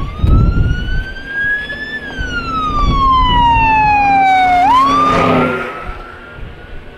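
Wailing siren on a passing fire truck. It climbs, slides slowly down, then sweeps back up about two-thirds of the way in, and is loudest in the middle as the truck goes by.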